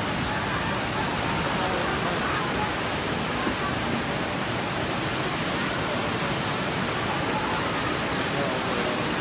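Muddy floodwater from a breached river embankment rushing fast between houses: a loud, steady rushing of water. Faint voices are heard briefly under it.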